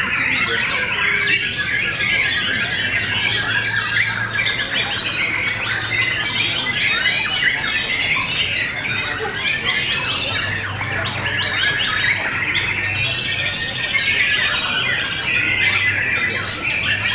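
Many caged white-rumped shamas (murai batu) singing at once, their rapid whistled and chattering phrases overlapping in a dense chorus, with a steady low hum underneath.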